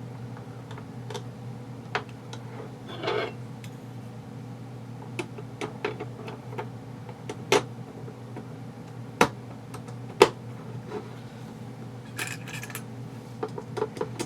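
Scattered sharp clicks and clacks of small airsoft rifle parts being handled and fitted, the loudest a few separate knocks a second or so apart in the middle, over a steady low hum.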